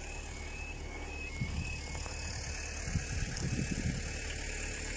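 Low outdoor rumble with irregular gusts of wind on the microphone, stronger in the second half. A faint high pulsing tone, about two pulses a second, fades out about two seconds in.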